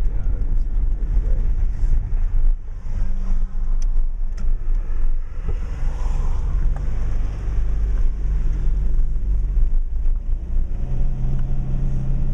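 Subaru Outback driving on a rough off-road track: steady engine hum and road noise, with scattered knocks and rattles from the bumps.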